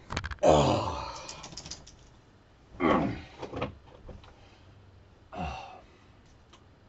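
A man groaning in pain three times, each groan sliding down in pitch, the loudest about half a second in. He has just been kicked in the groin by his dog. A few clicks and knocks of movement come near the start.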